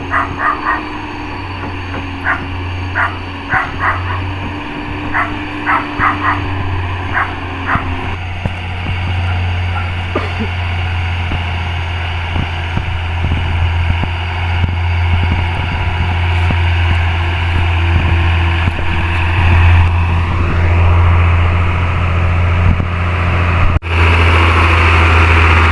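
Hino Ti260 truck's diesel engine pulling uphill in second gear, a steady low drone that grows louder over the second half. A dog barks about a dozen times in the first eight seconds.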